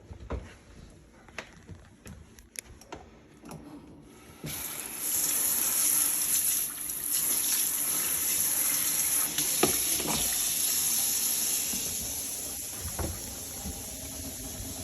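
A few light clicks and knocks, then about four seconds in a kitchen faucet is turned on. Water runs steadily into the sink and down the drain as a constant hiss, with a knock or two under it. This is the first water test of a freshly reassembled P-trap, filling it to look for drips.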